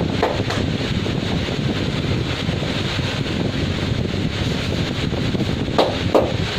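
Steady roadside traffic noise, an even hiss without distinct vehicles, with two brief sharp sounds near the end.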